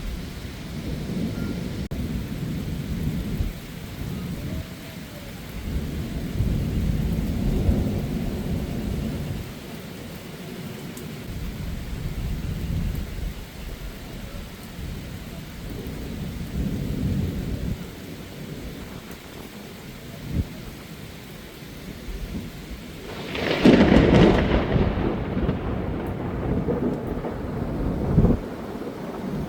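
Thunder rumbling again and again over heavy rain. About three quarters of the way in comes a sudden, much louder thunderclap from a close lightning strike, which rolls on for several seconds.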